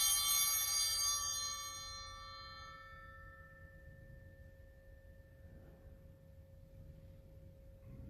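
Altar bells rung at the elevation of the chalice during the consecration: one more strike right at the start, then the ringing tones fade away over about three seconds, with one lower tone lingering faintly.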